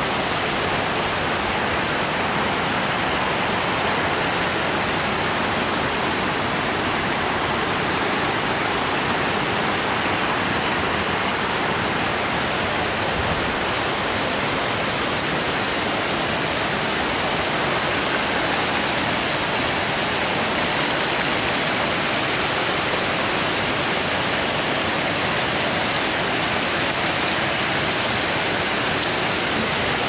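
River water pouring over a low concrete dam, a steady rush of falling water.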